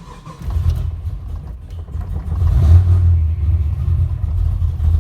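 Freshly built LS2 V8 firing up for the first time: it catches right at the start and runs. It builds in level over the first couple of seconds and stays loud and uneven.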